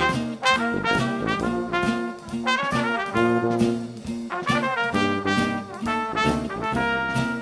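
Upbeat jazzy background music led by brass horns playing a lively melody of short notes.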